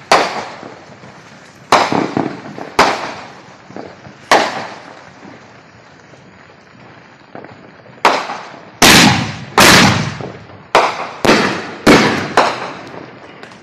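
Two 3-inch heavy-load single-shot firework mortar shells launching and bursting: a series of sharp bangs, each dying away in an echo. Four bangs come spaced over the first few seconds, then about seven loud ones in quick succession from about eight seconds in, as the silver tail bursts and the main shell breaks go off.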